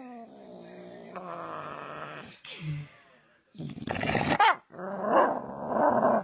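A dog vocalizing: a drawn-out moan of about two seconds that slowly falls in pitch, then a string of rough growls and grumbles.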